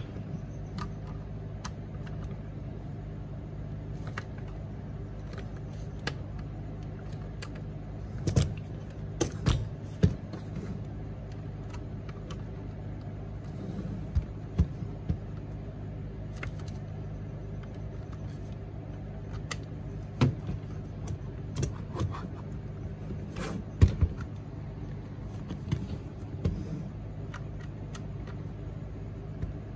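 Scattered knocks and clicks of a motor controller's casing and metal mounting brackets being handled and pressed into place, over a steady low hum.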